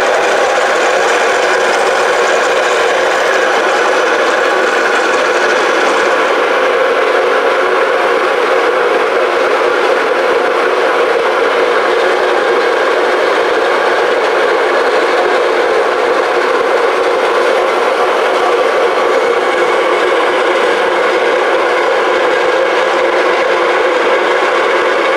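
Softel domestic stone-type flour mill (atta chakki) running loud and steady, its motor and grinding stones milling wheat into flour.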